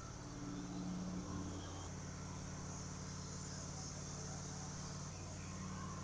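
Wood-Mizer LT15 sawmill's engine running steadily without cutting, a low hum. Its pitch shifts slightly about two seconds in and again about five seconds in.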